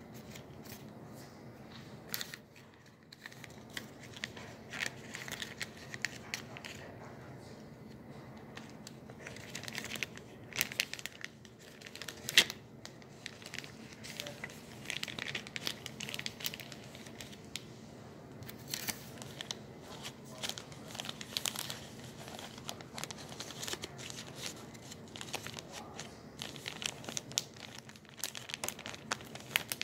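Irregular crinkling and rustling with many small sharp clicks and crackles scattered throughout, one louder click a little after twelve seconds in.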